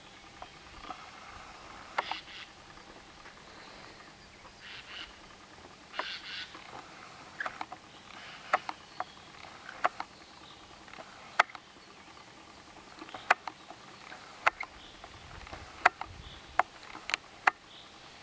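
Footsteps on a gravel and dirt lot: irregular sharp clicks and short crunches, roughly one a second, over a quiet background.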